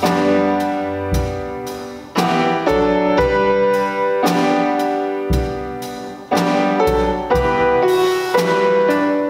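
Piano playing a slow hymn: chords struck about once a second and left to ring and fade, with deep bass notes under several of them.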